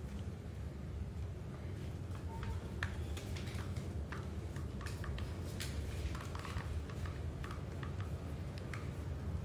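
Hands working a silicone cover on a TV remote: scattered small clicks and rubbing of rubber on plastic, over a steady low hum.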